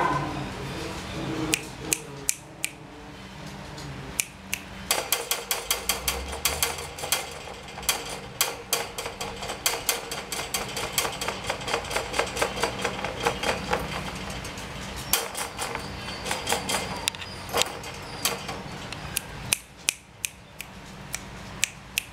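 Quick, sharp clicks and rattles from a puppy moving about in a wire cage, several a second and densest through the middle, thinning out near the end.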